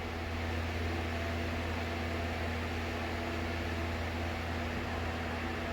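Steady low machine hum with an even hiss: the room tone of a running fan or appliance.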